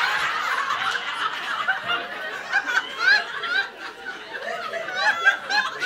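Audience laughing: many scattered chuckles and individual laughs following a louder burst, with no one speaking.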